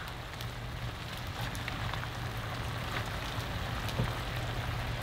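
Chicken, peppers and onions sizzling steadily in a large cast iron skillet on a wood stove, with a few faint clicks of metal tongs as the food is stirred.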